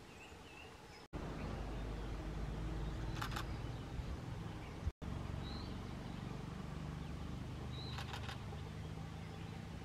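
Outdoor forest ambience with a steady low rumble, a few short high bird chirps, and two brief rapid rattling calls, about three seconds in and again near the end. The sound drops out abruptly about a second in and again about five seconds in.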